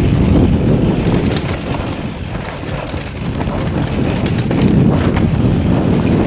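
Wind buffeting a helmet-cam microphone during a fast mountain-bike descent of a rocky dirt trail, with scattered clicks and rattles from the bike and the tyres on stones. It eases a little a couple of seconds in, then picks up again.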